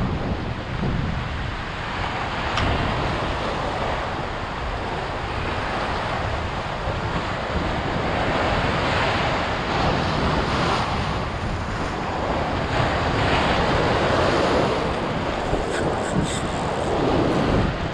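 Sea surf breaking and washing over shoreline rocks, swelling and easing every few seconds, with wind buffeting the microphone.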